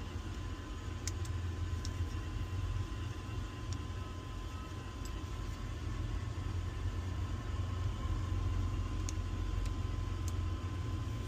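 A few light clicks of small metal lock parts and springs being fitted into a motorcycle gas cap, over a steady low rumble.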